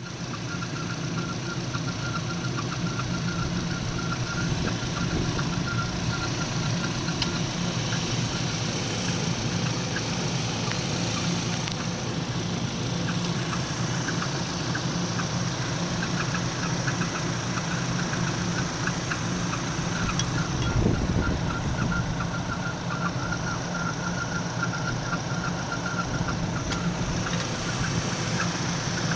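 Renault Kaptur engine running steadily with a thin, high whistle over its hum, plainest through the middle of the clip. The whistle comes from a faulty EGR (exhaust gas recirculation) valve.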